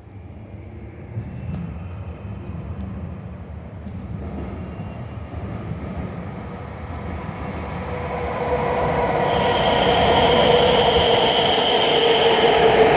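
A W7 series Shinkansen train arrives at the platform: a low rumble grows louder as it approaches. From about nine seconds in, loud running noise and a high, steady squeal sound as it runs in alongside the platform to stop.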